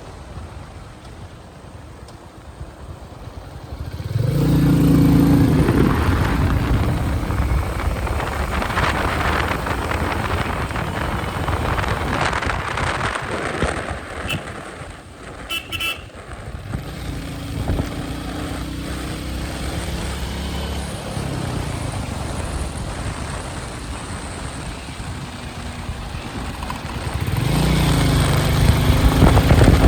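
Royal Enfield Meteor 350's single-cylinder engine and exhaust under way, with wind noise. The engine gets louder about four seconds in and again near the end. A horn beeps briefly about halfway through.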